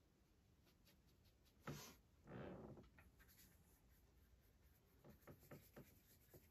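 Faint sounds of a paintbrush and palette being handled: a single knock, a short scrape, then a quick run of light taps near the end as the brush dabs and mixes acrylic paint on the palette.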